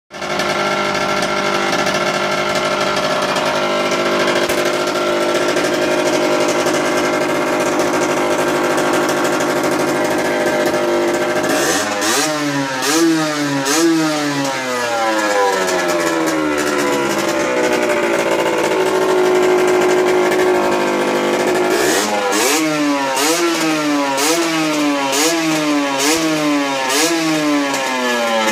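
Derbi GPR Nude 50's 50 cc two-stroke single-cylinder engine idling steadily. About halfway through it is blipped repeatedly, the revs rising and falling roughly once a second. It settles back to idle, then is blipped again in the same rhythm near the end.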